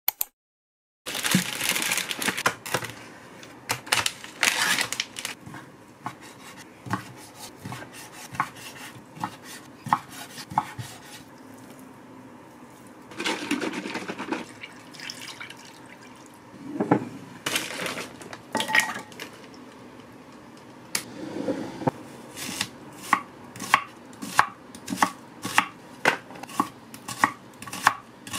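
Kitchen prep sounds: clatter and handling of bowls, packaging and a cutting board, then near the end a knife chopping an onion on a wooden cutting board, about two even cuts a second.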